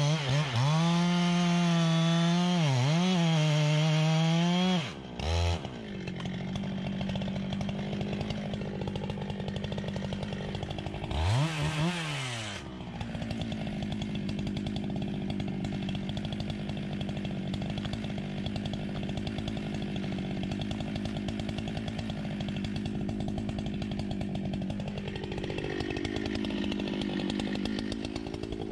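Chainsaw at full throttle for about five seconds, its pitch dipping twice as it bogs in the cut. It then drops to a quieter steady idle, with one short rev about eleven seconds in.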